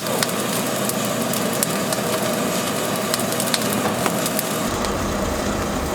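Oak wood crackling and snapping in irregular sharp clicks over a steady hiss. A low rumble comes in near the end.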